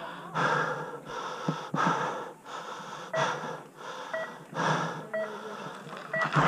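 A rider breathing deeply and hard, close to the helmet-mounted mic, in the race start gate. From about three seconds in, the start-gate countdown timer beeps four times, one short beep a second.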